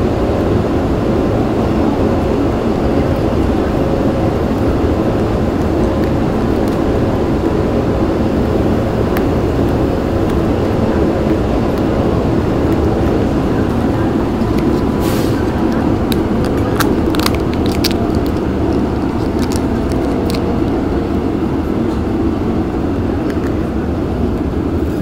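Seoul Metro Line 2 subway train running, heard from inside the carriage: a steady rumble with a faint steady whine. A little past halfway comes a run of sharp clicks and crackles as the plastic toy capsule is handled and opened.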